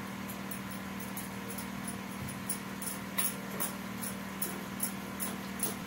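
Light, quick clicks and ticks of hands working in steel kitchenware while rolled dough is filled with roasted chana stuffing, over a steady background hum. The ticks come about two or three a second, a few of them louder from about halfway through.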